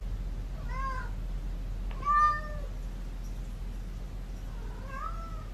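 Domestic cat meowing three times, short calls that rise and fall in pitch, the second the loudest, over a low steady background hum.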